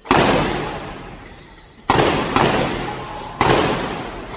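Field guns firing blank charges: four loud bangs, one at the start and three more later, two of them about half a second apart, each followed by a long echo in a large hall.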